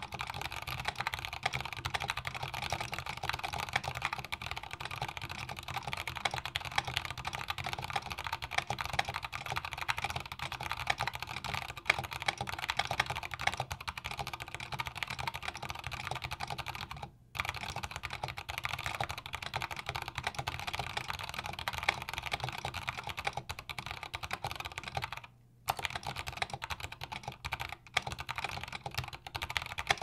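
Fast typing on a custom 60% mechanical keyboard with Kailh Box Brown tactile switches, thick PBT keycaps and a wooden case: a dense, continuous clatter of keystrokes, with two brief pauses in the second half.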